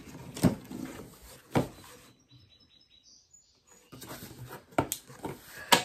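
Cardboard shipping box being opened by hand: packing tape slit and the cardboard flaps pulled open, with a few sharp rips and crackles of cardboard between quieter rustling. In a quiet stretch midway, a few faint short high chirps sound.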